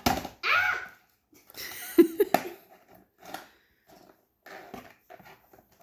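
Plastic packaging on a boxed model horse being handled: rustling and several sharp clicks as the bands holding the model are worked at, with a short pitched vocal sound near the start.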